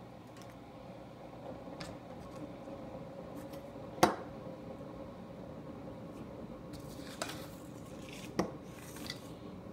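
Dishware and utensils being handled: a few light clinks and knocks, one sharp knock about four seconds in, over a steady low hum.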